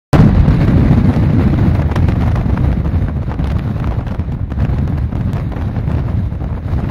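Gale-force wind buffeting the microphone: a loud, continuous low rumble of wind noise.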